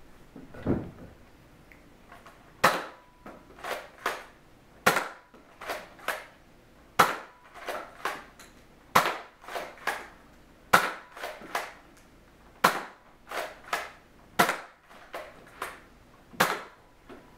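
Nerf Elite 2.0 Eaglepoint blaster being primed and fired again and again in its normal firing mode. It gives a string of sharp plastic clicks and snaps, often in close pairs, about one to two a second, after a soft thump and a short lull at the start.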